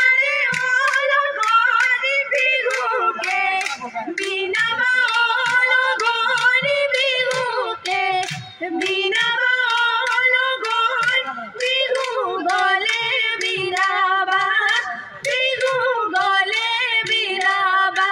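Women singing an Assamese Bihu song to a quick, steady beat of sharp claps, with little other accompaniment.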